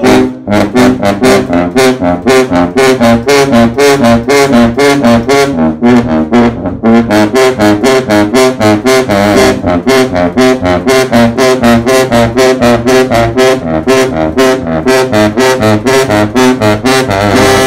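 Two sousaphones playing a loud, fast riff together in short, punchy notes, several a second.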